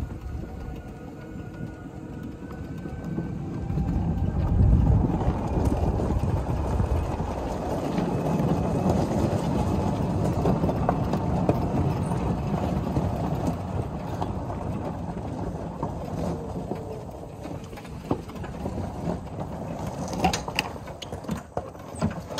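EZGo 36-volt electric golf cart driving over grass and gravel: a steady rumble of tyres and rattling body with a faint motor whine early on. It slows near the end, with a few sharp clicks as it comes to a stop.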